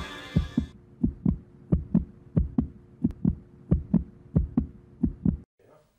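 Heartbeat sound effect: paired low thumps (lub-dub), about one and a half beats a second, over a faint steady hum. It cuts off suddenly shortly before the end.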